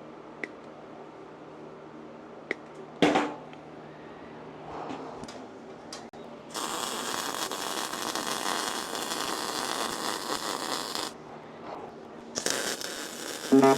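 MIG welder laying a bead: a steady crackling hiss for about four and a half seconds, then after a short pause a second burst of about a second. A few clicks and one louder clank come a few seconds before the first bead.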